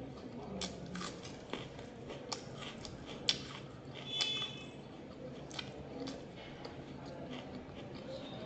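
Close-up chewing and wet mouth clicks of a person eating fried fish, with a few sharper taps. A brief high squeak comes about four seconds in.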